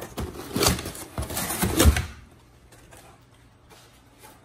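Cardboard packaging insert scraping and rustling against the sides of a cardboard box as it is pulled out, over the first two seconds, then quiet.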